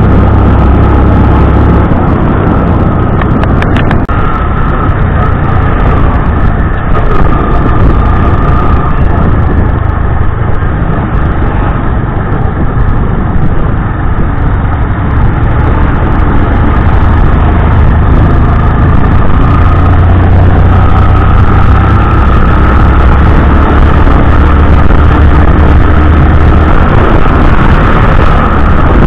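Motorcycle running at road speed, its engine note under a loud, steady rushing noise on the microphone.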